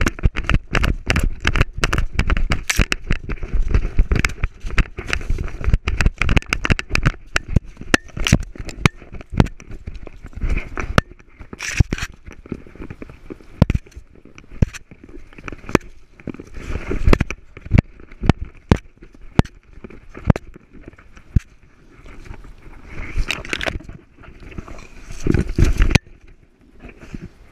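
Dry leaves, pine needles and brush crackling and scraping against a harness-mounted GoPro as a German Shepherd puppy moves through undergrowth, mixed with sharp knocks from the camera jostling on the harness. The knocks come thick and fast at first, then thin out with quieter gaps.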